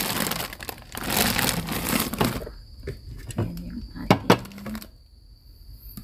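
Thin plastic produce bag crinkling loudly as it is handled for the first two seconds or so, followed by a few sharp knocks as items are set down on a refrigerator shelf.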